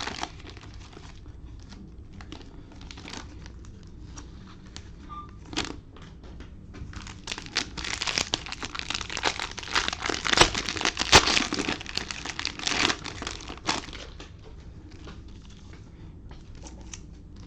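Cellophane wrapping on a box of trading card packs crinkling and tearing as it is pulled open and handled. The crackling is busiest and loudest in the middle, then settles to lighter rustling near the end.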